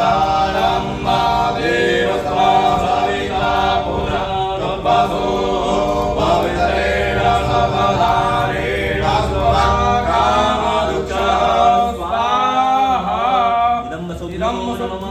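Sanskrit Vedic mantras chanted by several voices together in a steady, melodic recitation.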